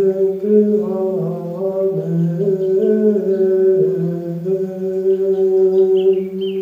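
A voice chanting a mantra in long held notes, stepping slowly between a few pitches. Faint bird chirps come in near the end.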